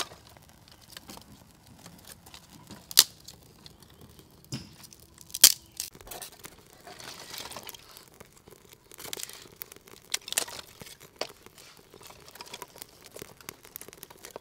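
Dry sticks and leaf kindling being handled and snapped in a clay firepot stove as a small wood fire is lit: crinkling of dry leaves with a few sharp snaps, the loudest about three and five and a half seconds in.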